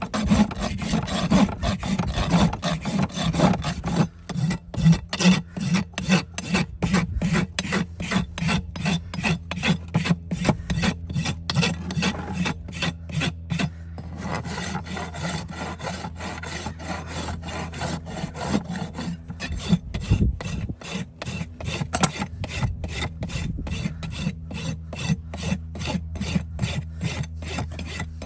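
Rapid, rhythmic rasping strokes, about four a second, of abrasive hand work such as filing or scraping on a surface, with a steady low hum beneath.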